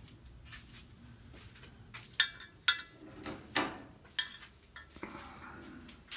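A run of sharp knocks and clicks, about five between two and four and a half seconds in, several with a brief metallic ring, over a faint low hum.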